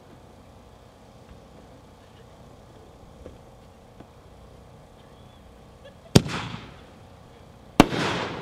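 Phantom 'Grucci Palm to Willow' 9-shot firework cake firing its first shot: a sharp launch bang about six seconds in, then the shell's burst a second and a half later, each bang trailing off over the next second.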